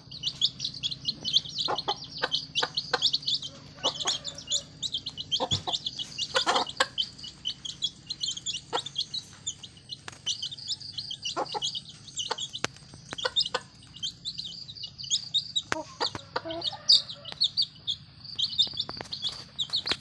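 Chicks peeping constantly in rapid high chirps, with short clucks from a chicken now and then.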